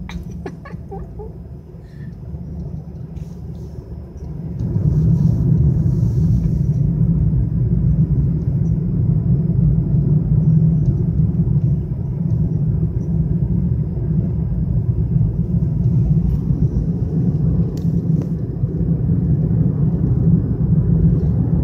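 Steady low rumble of road and engine noise inside a moving car's cabin. It gets louder about four and a half seconds in and stays up.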